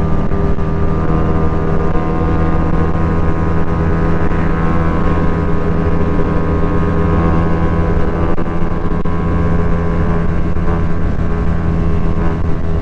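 Motorcycle engine running at a steady cruising speed, heard from on board the bike, its pitch holding level.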